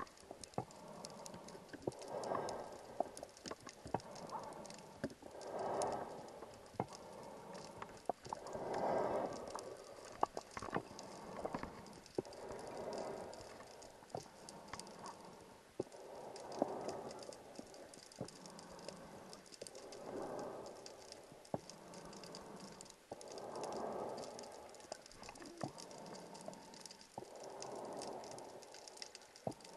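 Scuba diver's exhaled breath bubbling out of the regulator underwater. The bubbling rush comes back about every three to four seconds, about eight times, over a steady crackle of small sharp clicks.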